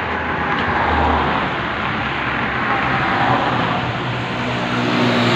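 Handheld power grinder running against the edge of a granite countertop slab: a loud, continuous grinding noise that swells and eases as the tool moves, with the motor's hum growing stronger near the end.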